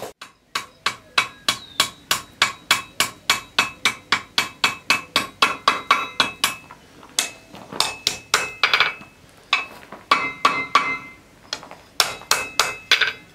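Hand hammer striking red-hot steel on an anvil, steady blows about three a second. After a brief pause near the middle come three shorter runs of blows with the anvil ringing after each one. The smith is forging the downward curve into the knife's handle.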